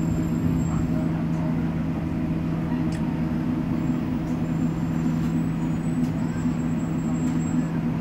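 Caio Millenium BRT trolleybus on a Scania K270UB chassis standing still, giving off a steady low hum.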